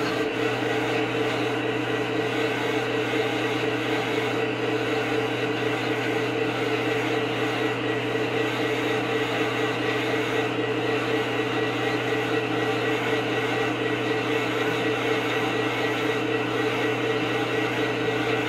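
Sound system of an SD80MAC model diesel locomotive playing a steady diesel idle, a constant low drone.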